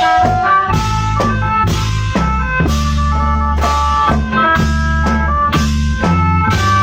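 Instrumental music from a Thai applied khaen band (khaen wong prayuk): a steady drum-kit beat of about two strokes a second, held bass notes and several sustained melodic lines together.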